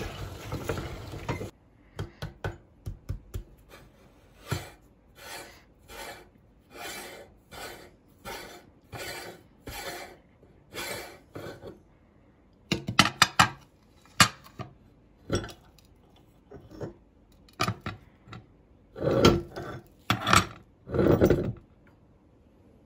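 A hand-cranked metal meat grinder crunching pressed popcorn into powder stops about a second and a half in. Then come short, separate metal scrapes and clinks as the grinder's front ring is unscrewed and the perforated cutting plate taken off the powder-coated auger, with louder clattering bursts near the middle and toward the end.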